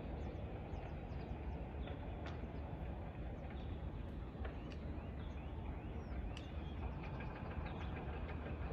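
Small birds chirping in many short, high calls over a steady low rumble of distant city noise.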